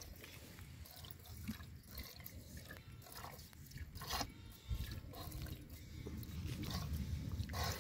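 Hand-milking a cow: short swishing squirts of milk from the teats, irregular, about one a second, over a low rumble that builds in the second half.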